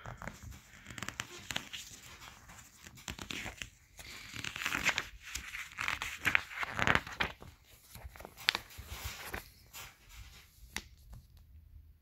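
Glossy catalog pages rustling and crinkling as they are handled and turned, loudest around the middle when a page is flipped over.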